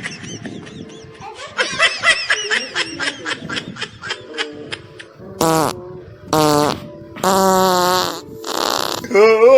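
Fart noises played as a prank: three separate buzzy blasts, the first falling in pitch and the last the longest at nearly a second. Before them comes a quick run of short wavering squeaks.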